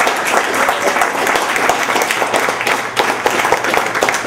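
Small audience applauding, many hands clapping quickly and continuously.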